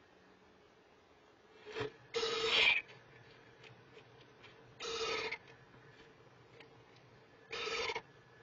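Owlets in a nest box giving three short, raspy, hissing begging calls a couple of seconds apart, the first the longest and loudest.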